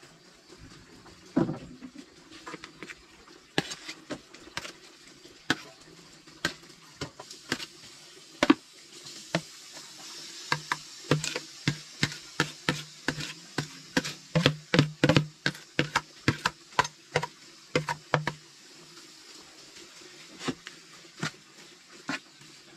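Kitchen utensils and dishes clicking and knocking during food preparation. The knocks come irregularly, a few a second, and are thickest in the middle stretch.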